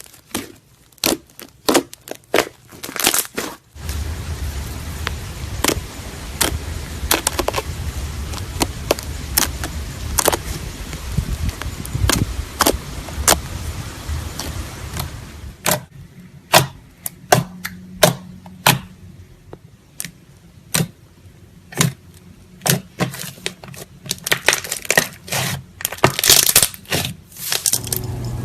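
Slime being squeezed and stretched by hand, making many irregular sharp pops, clicks and crackles.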